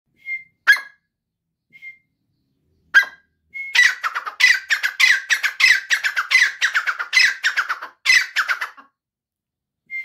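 Grey francolin calling. It gives a couple of short whistled notes and two sharp single calls, then, from about three and a half seconds in, a rapid run of loud, high repeated calls at several a second. The run stops about a second before the end.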